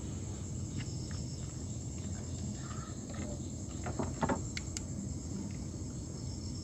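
Steady night chorus of crickets and other insects over a low background rumble, with a brief cluster of sharp knocks about four seconds in from fishing gear being handled in the wooden boat.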